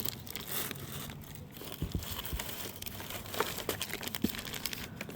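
Crinkling plastic packaging being handled, with irregular rustles and small clicks throughout.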